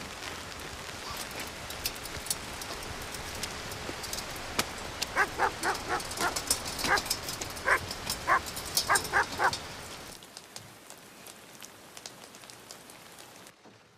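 A dog barking in a quick run of about a dozen short barks between about five and nine and a half seconds in, over a steady hiss with fine crackling ticks. The hiss drops away at about ten seconds in, leaving a quiet background.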